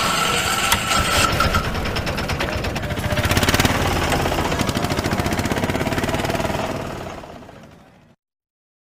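Motorcycle engine running at a steady road speed, a fast, even pulsing from its firing, with wind noise on the microphone; it fades out about seven seconds in and cuts to silence just after eight.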